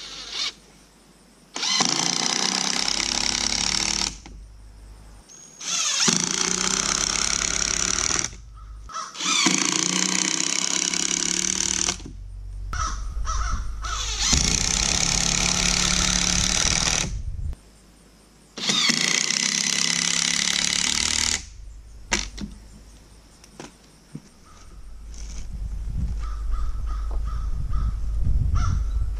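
Cordless drill-driver driving screws into pallet wood: five runs of a few seconds each with short pauses between.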